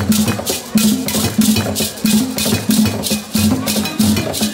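Music with a steady beat: crisp percussion strokes repeating about three times a second over a pulsing bass line.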